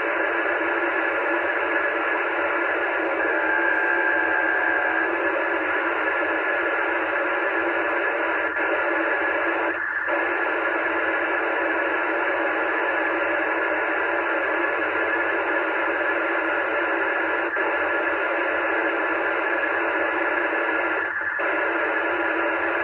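Cheap Chinese dual-band handheld radio's speaker blaring interference from a nearby digital paging transmitter on the 2 m band: a loud, steady, tinny noise with two brief breaks, about ten and twenty-one seconds in. It is the sign of the radio's poorly selective front end failing to reject strong signals on adjacent frequencies.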